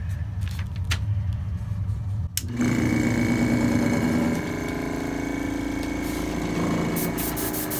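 Small electric airbrush air compressor switching on about two and a half seconds in and running steadily with a hum, after a few clicks as the switch on the back of the unit is worked.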